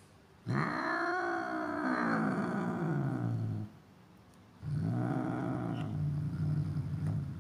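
Domestic cat giving two long, low growling yowls: the first rises and then falls in pitch, and the second, starting a second after it ends, stays lower and steadier. It is the warning call of an angry cat.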